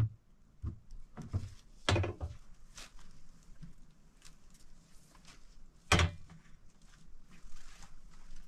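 Plastic containers and household items being handled and set down: two louder hollow knocks, about two seconds in and about six seconds in, with fainter clicks and rustles between.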